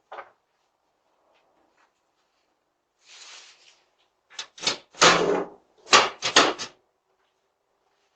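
A quick series of loud knocks and bangs on a door, about seven in under three seconds, with one longer rattling bang in the middle, picked up by a Ring video doorbell's microphone.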